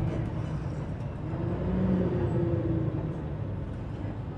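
Engine and cooling fan of a 2011 IC CE school bus running as the bus drives, heard from inside the front of the bus: a steady low engine hum, swelling and rising then falling in pitch about two seconds in.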